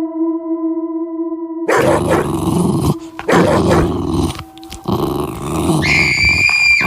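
Dog growling hard in several long stretches with short breaks, after a held electronic note at the start. A high steady tone sounds over the growling near the end.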